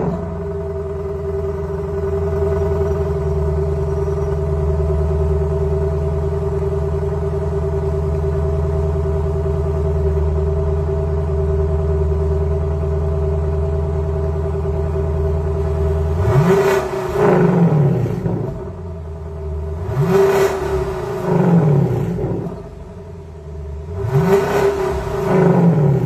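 Lexus LC500's 5.0-litre V8 through an ARMYTRIX decat valvetronic exhaust, idling steadily, then revved three times in the second half, about four seconds apart, each rev rising quickly and dropping back to idle.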